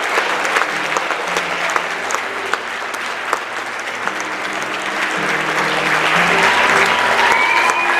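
Audience applauding steadily, with music playing underneath.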